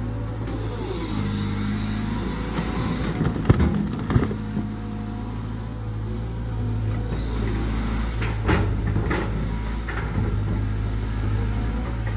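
Heavy diesel engine of a construction machine running steadily, with a few sharp knocks about three and a half and four seconds in, and fainter ones later.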